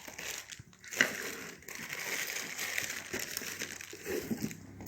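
Packaging crinkling and rustling as the parts of a new mixer grinder are lifted out of the box, with a sharp crackle about a second in and small clicks of parts being handled.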